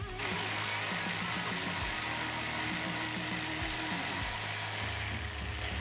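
Cordless electric ratchet running steadily for about five seconds, a high whine over a buzzing rush, as it spins out the shock absorber's upper mounting bolt. It stops shortly before the end.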